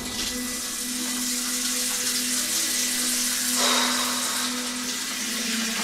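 Water running from a bathroom tap into the sink, a steady hiss that grows fuller a little past halfway, with a steady low hum underneath.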